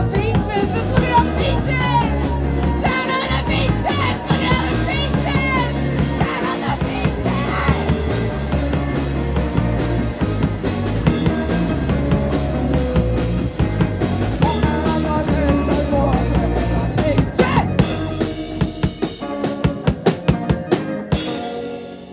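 Live rock band playing: electric guitars, keyboard and a drum kit. Near the end the song breaks down into a series of separate loud drum hits and stops.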